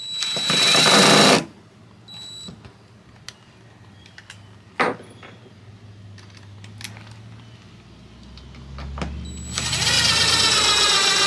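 Cordless drill driving screws into OSB to fix a solar charge controller to the board: a run of about a second and a half at the start, a short blip about two seconds in, a sharp knock near five seconds, and a longer run of about two seconds near the end with the motor's pitch wavering.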